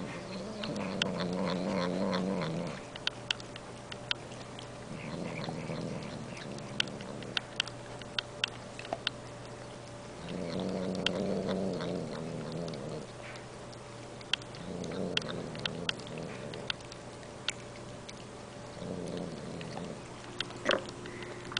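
Elderly domestic cat making drawn-out "nmm nmm" noises as it eats food off a plastic spoon, about five times, with short wet licking and smacking clicks between.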